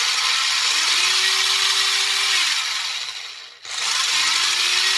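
Toy-grade RC car's brushed sprint motor and gearbox whining as it is run on the throttle on the bench. The pitch rises, holds, then falls away, and the motor briefly stops about three and a half seconds in before it spins up again.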